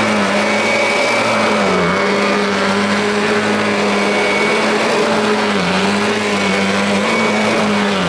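Kirby upright vacuum cleaner running on a rug, a steady motor hum with a high whine above it; the hum dips briefly in pitch twice.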